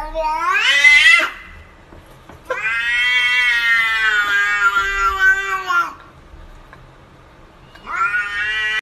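A domestic cat meowing in three long, drawn-out calls: the first rising in pitch, the second held for about three seconds, and a shorter third near the end.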